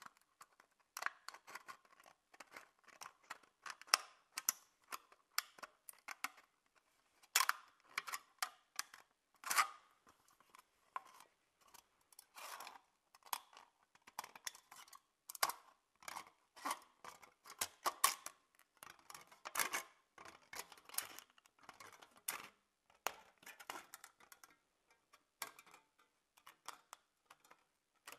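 Scissors cutting a thin aluminium drink can along a marked line: a long run of short, sharp snips at an uneven pace, about one or two a second.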